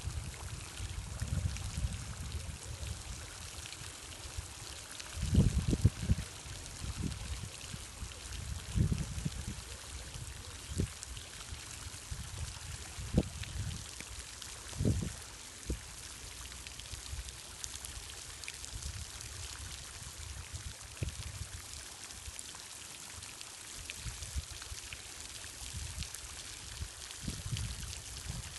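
Water running or trickling steadily, with irregular low thumps and rumbles on the microphone, the strongest about five seconds in.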